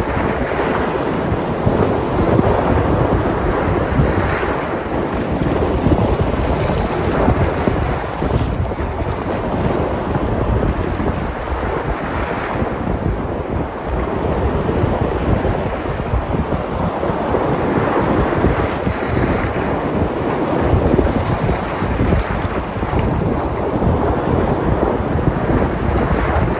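Sea surf washing onto the shore, a continuous rush that swells every few seconds, with wind rumbling on the microphone.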